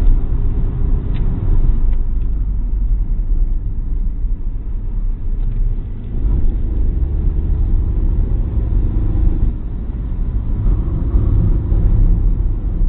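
Opel Corsa driven hard, heard from inside the cabin: steady engine and road rumble with a deep low-end drone. The noise drops briefly about six and ten seconds in.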